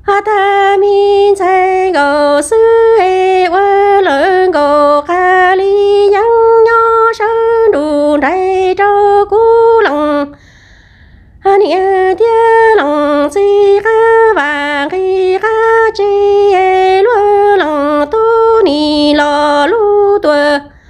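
A woman singing Hmong kwv txhiaj (traditional sung poetry) unaccompanied, in a high voice with long held, wavering notes. The singing breaks for about a second midway, then goes on.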